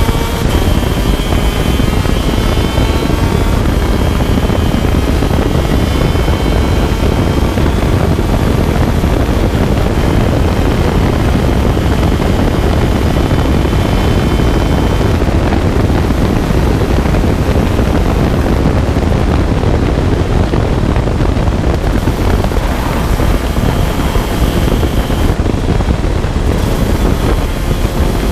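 125cc two-stroke shifter kart engine running hard at race speed, heard from an onboard camera and mixed with heavy wind rush. The engine note is clearest in the first half, with its pitch drifting up and down, and is then mostly buried under the wind.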